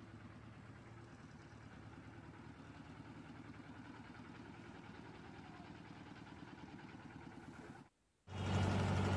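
Faint diesel engine running steadily at a road-paving site. After a brief dropout about eight seconds in, a much louder engine runs steadily with a low hum.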